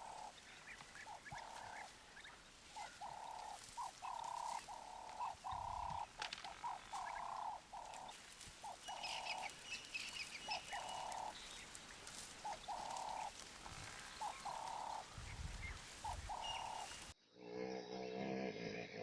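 Faint, repeated short animal calls, each about half a second long and at much the same mid pitch, coming at irregular intervals, with a few higher chirps in the middle. Near the end the sound cuts abruptly to a different recording.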